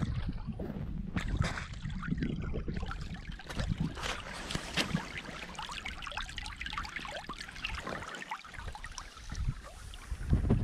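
Snowmelt water flowing and trickling across a flooded dirt road, close to the microphone, with a constant fine bubbling crackle. Wind buffets the microphone now and then with a low rumble.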